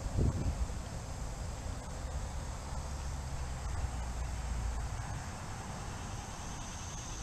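Outdoor creek ambience: a steady low rumble that eases after about five seconds, with faint insect chirping, and a few short thumps in the first half-second.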